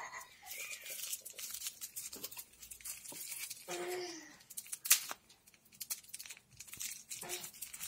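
Plastic bubble wrap crinkling and crackling as it is handled and cut open with a knife, with irregular sharp clicks and one louder snap about five seconds in.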